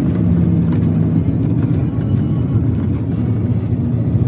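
Car driving along the road, heard from inside the cabin: a steady low rumble of engine and tyre noise.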